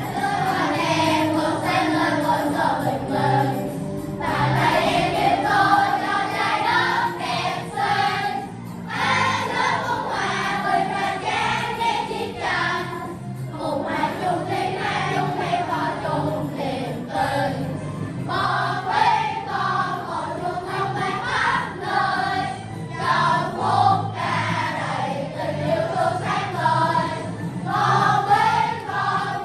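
A class of children singing a Vietnamese song together over an instrumental accompaniment with a steady beat.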